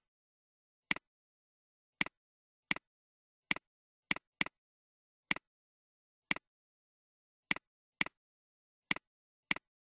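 Computer mouse clicks: about a dozen single clicks at uneven intervals, each a sharp press followed at once by a softer release, with silence between them.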